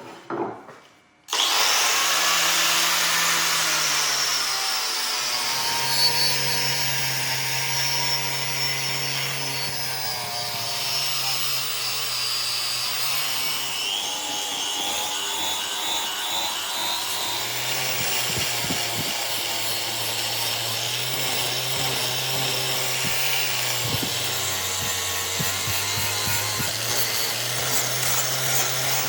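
Electric grinder grinding the steel knife blade. It starts abruptly about a second in and then runs steadily, its motor pitch dipping slightly now and then as the blade is pressed in.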